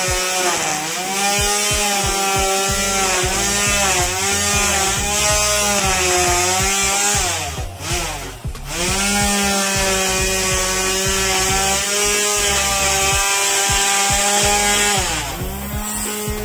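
Grass-cutting machine's small engine running at high speed, its pitch wavering with the throttle, then falling away and picking back up about eight seconds in.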